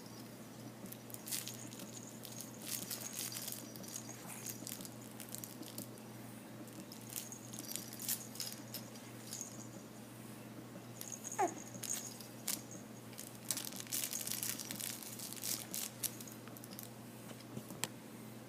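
A baby is quiet, making soft mouth clicks and small rustles, and lets out one brief falling squeak about halfway through. A faint steady hum runs underneath.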